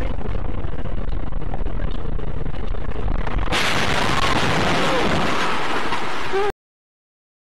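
Dashcam audio of a car on a wet road: a steady, loud road and engine rumble that turns into a brighter hiss about three and a half seconds in, then cuts off abruptly about six and a half seconds in.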